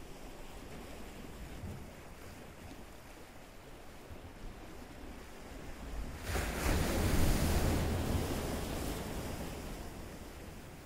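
Ocean surf washing steadily, with one wave breaking loudly about six seconds in and slowly dying away.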